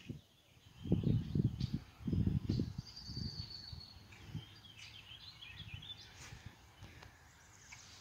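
Wind buffeting the microphone in gusts during the first few seconds, then small birds chirping and twittering high and thin from about three seconds in.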